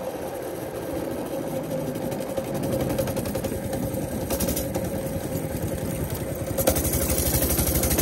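Baja Warrior minibike's small single-cylinder engine running, picking up about two and a half seconds in and again near the end, where it settles into a fast, even beat.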